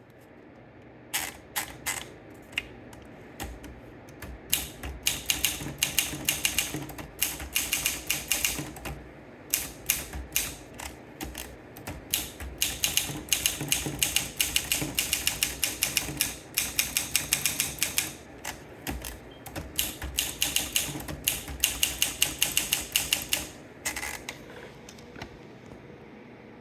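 Olympia SM2 manual portable typewriter being typed on. A few single key strikes come about a second in, then quick runs of keystrokes with short pauses, stopping a couple of seconds before the end.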